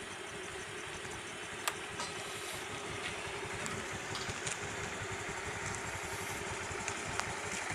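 Small scooter engine idling steadily, with a faint click about a second and a half in.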